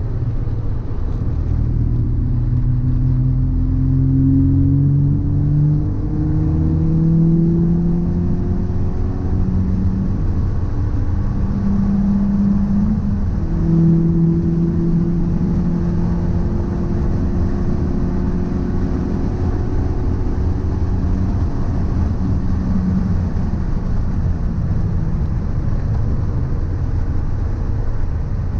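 Car driving with a low rumble and humming tones that slowly rise and fall with speed: the abnormal noise and vibration that the owner suspects comes from a drive shaft or a wheel hub bearing.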